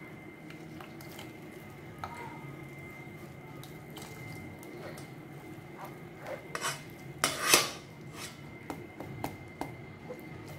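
Silicone spatula pressing and scraping pulp against a stainless steel mesh strainer set over a metal bowl, squeezing out its juice, with scattered light clicks and knocks of metal. The loudest scraping comes about seven seconds in.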